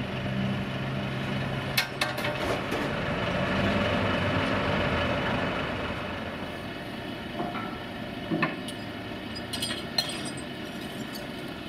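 A heavy diesel engine running, swelling and then fading about midway, with sharp metallic clinks and knocks of chains and steel gear being handled on a low-loader trailer: a pair about two seconds in and several more near the end.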